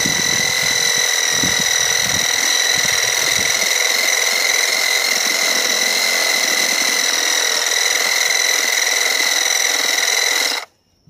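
Abeden HY-7020 cordless reciprocating saw, running on a Makita-type battery, sawing through a thick log. Its motor gives a steady high whine over the rasp of the blade in the wood. It stops suddenly near the end.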